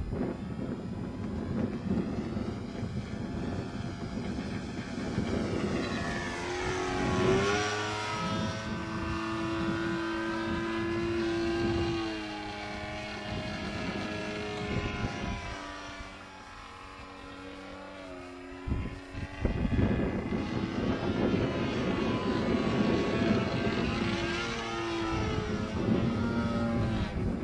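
Propeller engine of a Zero fighter in flight, its pitch sliding up and down as the plane passes and turns. The sound dips quieter for a few seconds past the middle, then grows loud again.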